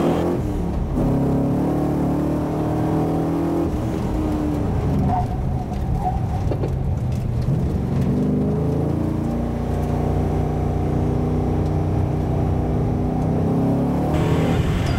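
HSV W427's 7.0-litre V8 heard from inside the cabin under hard acceleration, its note climbing through the revs, easing off around four to seven seconds in, then pulling and climbing again.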